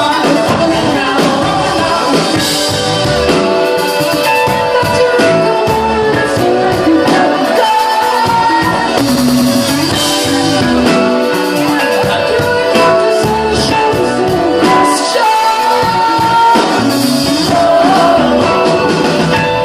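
Indie rock band playing live at full volume, with a sung lead vocal over guitars, bass and steady drums, recorded from within the audience.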